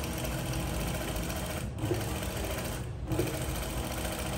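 Zoyer single-needle industrial sewing machine stitching through denim. It runs in spurts, stopping briefly twice, about two and three seconds in.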